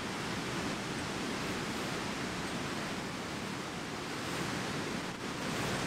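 Steady outdoor rushing noise with no tones or distinct events.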